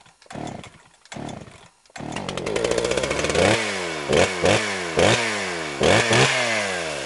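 Chainsaw's two-stroke engine pull-started: two short cranking bursts, then it catches about two seconds in and runs. It is revved in about six quick throttle blips, the pitch falling back after each.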